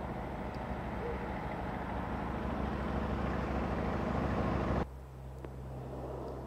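A car approaching along an asphalt road, its tyre and engine noise growing steadily louder, cut off suddenly about three-quarters of the way through. What follows is a quieter outdoor background with a steady low hum.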